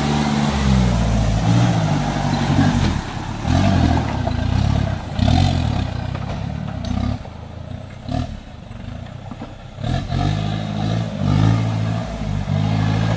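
Engine of a modified off-road 4x4 revving in repeated surges under load as it climbs a muddy creek bed. It eases off for a few seconds past the middle, then revs hard again.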